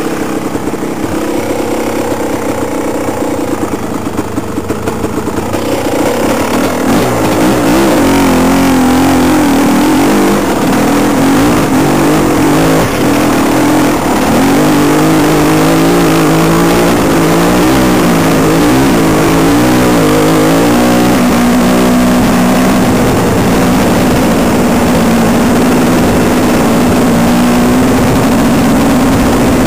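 Small engine of an off-road vehicle running under varying throttle as it is ridden over a rutted, muddy track, its pitch rising and falling. It gets louder about six seconds in and stays loud.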